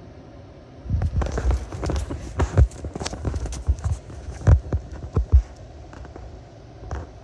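Irregular run of sharp clicks and knocks from the dashboard of a 2015 Kia Carnival, starting about a second in and dying away after about five seconds, over a steady hum: the intermittent clicking that comes from the dashboard when the air conditioning is on.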